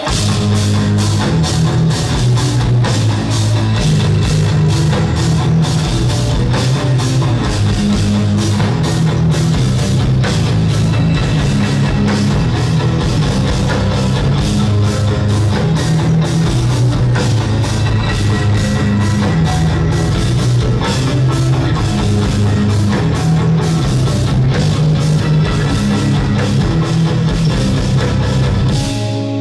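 Live instrumental progressive metal: two eight-string electric guitars playing low, intricate riffs over a busy drum kit with constant cymbal strikes, loud through a concert PA. The music stops abruptly at the very end.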